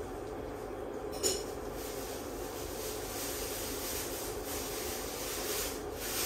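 Steady low room hum, with one sharp click a little over a second in and soft rustling toward the end.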